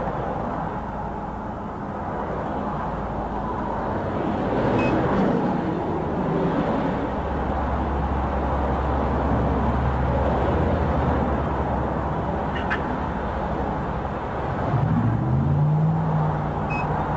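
Road traffic: a steady rush of passing vehicles, with a low engine hum coming in about halfway through and an engine tone rising in pitch near the end.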